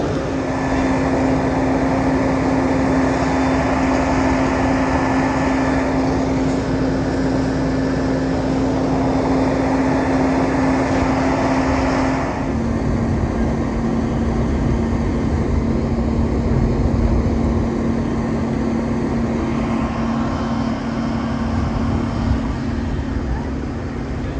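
Fire apparatus engines and pumps running with a steady drone, under a dense rushing noise. The drone drops slightly in pitch about halfway through.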